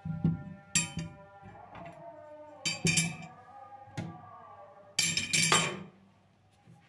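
Glass or ceramic kitchenware clinking as it is handled, a handful of sharp clinks with brief ringing, the last cluster about five seconds in.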